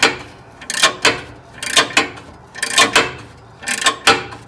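Ratchet wrench clicking in short runs, about once a second, as it drives a socket-style filter tool to tighten the oil filter housing back into the engine.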